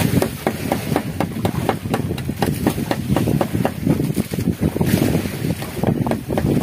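Wind on the microphone and sea water against the hull of a wooden outrigger fishing boat at sea, with a steady run of short knocks a few times a second.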